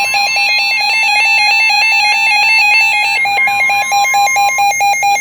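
Electronic emergency alert tone warbling rapidly between two pitches, turning to short pulses near the end. It is the alarm that signals a severe thunderstorm warning broadcast is about to follow.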